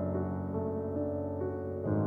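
Background music: soft, sustained piano or electric-piano chords, changing to a new chord near the end.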